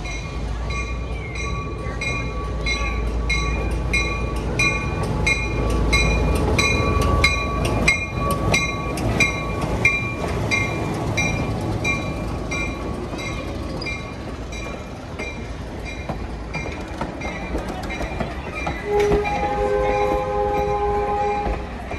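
Baldwin-Lima-Hamilton RS-4-TC diesel switcher pulling a passenger train past, its engine rumbling and its bell ringing about twice a second, then the coaches rolling by. Near the end a train horn sounds a chord for about three seconds.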